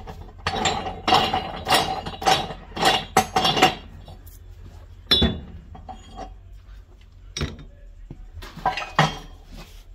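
Steel bar of a manual tire changer clinking and clanking against the rim and stand as it is worked around to pry a small turf tire off its rim. A quick run of sharp metal strikes in the first four seconds, then single knocks about five, seven and a half and nine seconds in.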